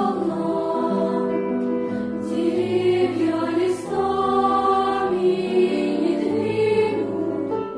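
Children's choir singing in several parts, holding long notes and moving together from chord to chord, with piano accompaniment.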